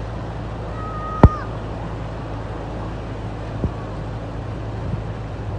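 Steady rush of fast-flowing floodwater through a street. About a second in there is a sharp loud knock with a brief high-pitched tone around it, and a fainter knock a little past three and a half seconds.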